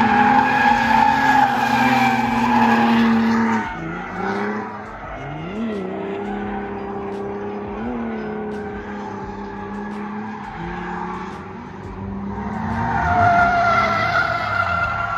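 Drift car's engine revving with tyres squealing through a slide. The squeal drops away after a few seconds and the engine holds steadier with two quick rev blips, then the tyres squeal again near the end.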